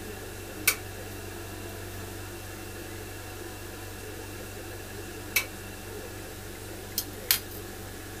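Sharp clicks from a glass-working kiln: one about a second in, another past five seconds, and a quick pair near the end. They sit over a steady hiss and low hum from the lit lampwork torch and workshop.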